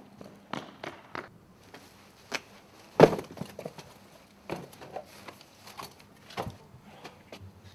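Irregular footsteps and knocks of a person running and then climbing down into a brick pit, with one louder thump about three seconds in.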